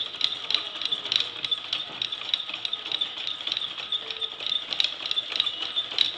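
Wooden cams, followers and gear wheels of a hand-made automaton clicking and rattling as the mechanism runs, several uneven clicks a second.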